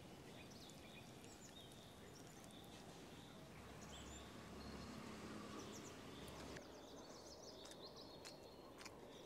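Near silence: faint outdoor background with small birds chirping now and then.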